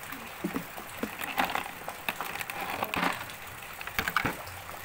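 Clear plastic packaging crinkling and crackling as it is handled, in several short irregular bursts with a few sharp clicks.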